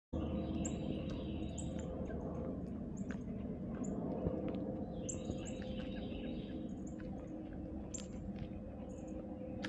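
Small birds chirping in short, high calls every second or so, over a steady low hum.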